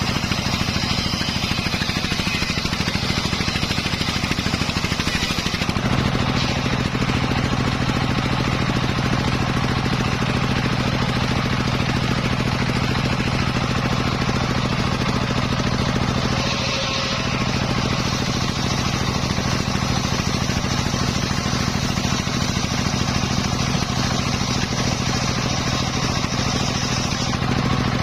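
Engine-driven home-built circular saw for sawing teak, running steadily under power. Its note shifts slightly about six seconds in and dips briefly just past the middle.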